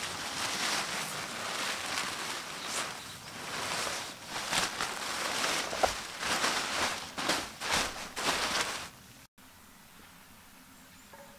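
A sleeping bag and crinkly nylon and plastic stuff sacks rustling and crackling as they are handled, loud and uneven, cutting off abruptly about nine seconds in; after that only a faint steady hiss.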